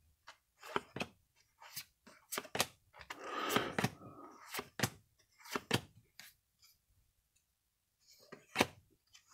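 Baseball cards being flipped off a stack by hand: irregular light snaps and flicks of card stock, with a longer rustle of cards sliding against each other about three seconds in.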